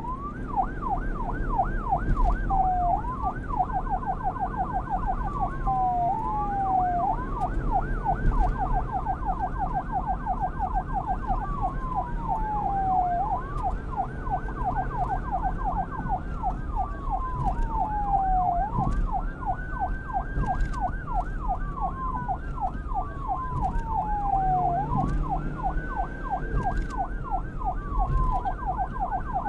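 Police car siren alternating between a fast yelp and a slow wail. The slow rise-and-fall cycles take over in the second half. A low rumble runs underneath.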